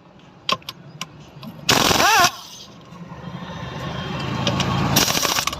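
Short bursts of a pneumatic impact wrench, each with a whine that rises and falls, about two seconds in and again near the end. Between them a low engine-like rumble grows steadily louder.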